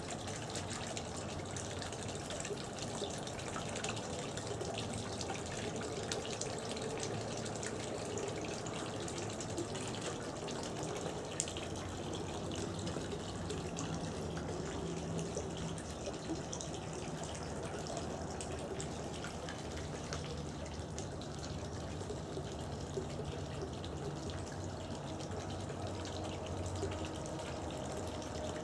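Backyard garden water fountain running: a steady splashing and trickling of falling water with small drips.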